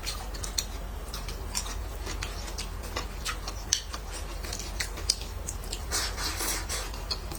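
Close-miked eating of stir-fried green chili pepper: irregular sharp, crisp clicks and crunches of chewing, densest about six seconds in, over a low steady hum.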